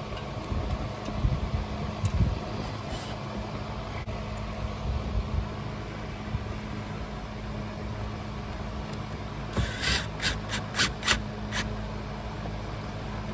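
Hands working parts into place behind a car dashboard, pushing a clip in. Low bumps and rustling come in the first few seconds, then a quick run of about six sharp clicks about ten seconds in, over a steady low hum.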